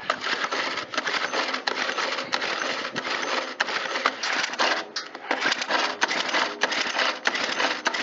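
Recoil starter of a Stihl KM130R 4-Mix engine pulled hard and repeatedly: the rope whirs and the starter rattles as the engine turns over without firing, its spark plug out and grounded against the cylinder for a spark test. A busy run of clicks throughout, with a short break about five seconds in.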